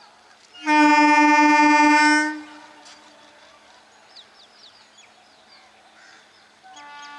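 Indian Railways train horn: one loud blast of about a second and a half, starting under a second in. Near the end a second, fainter horn starts and carries on.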